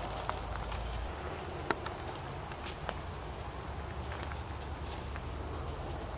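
Crickets trilling steadily on one high note, with scattered light ticks and one sharp click about two seconds in, over a low wind rumble on the microphone.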